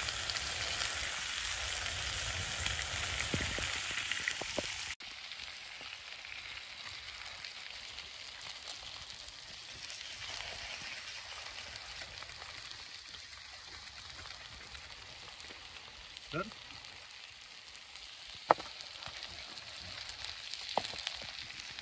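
Steak and vegetables sizzling in a frying pan, a steady frying hiss. About five seconds in it drops abruptly to a quieter sizzle, with a few sharp clicks later on.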